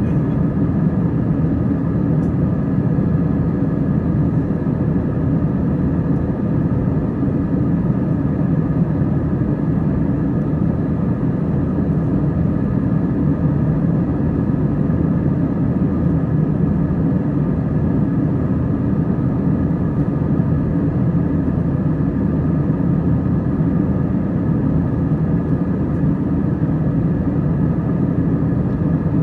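Cabin noise of an Airbus A321 in cruise: a steady, even low rumble of airflow and engines, with a steady hum running through it.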